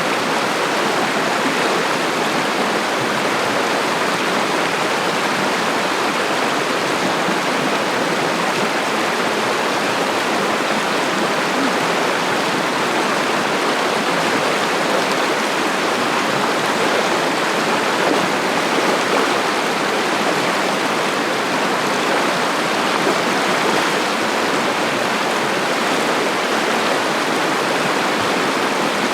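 Cossatot River, a clear mountain stream, rushing steadily.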